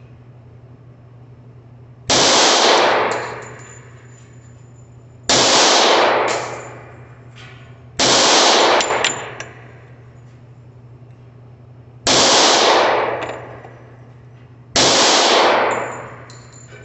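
Rock Island Armory 1911 .45 ACP pistol firing defensive loads: five single shots a few seconds apart, each report ringing on for about a second and a half. Faint clinks follow some of the shots.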